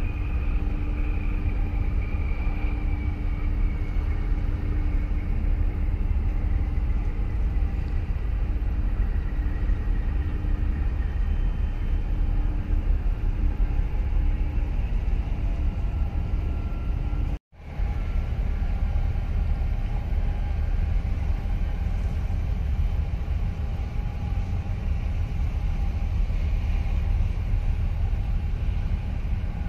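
Steady low rumble with a steady hum from a large container ship's machinery as it passes across the harbour water. The sound drops out for an instant a little past halfway.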